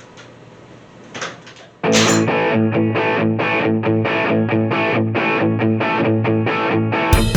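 Background rock music: a distorted electric guitar riff comes in suddenly about two seconds in, with drums joining near the end. Before it there are only a few faint clinks.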